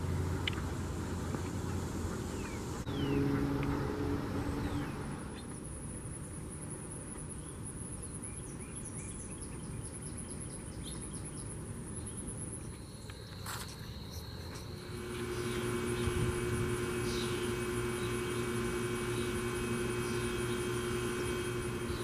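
Outdoor ambience with a high, evenly pulsing insect trill. A few short bird chirps sound in the first seconds, and a steady low hum joins about two-thirds of the way through.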